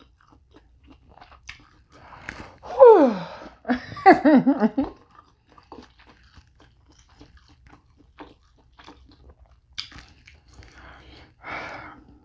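A person chewing a mouthful of lobster meat close to the microphone, with small wet mouth clicks and lip smacks. About three and four seconds in come two hummed "mmm" sounds, the first falling in pitch.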